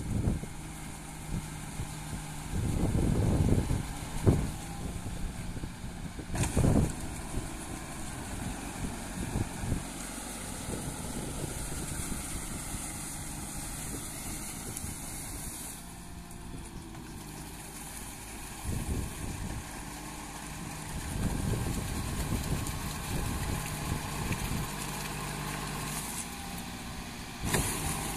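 Kubota MU5501 tractor's four-cylinder diesel engine running steadily under load as it drags a rotary tiller through deep paddy mud, with several louder rushes of noise coming and going.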